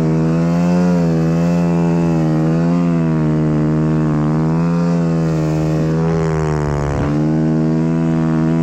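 Snow bike's single-cylinder dirt-bike engine running hard under throttle through deep snow. Its pitch rises and falls in gentle waves as the throttle is worked.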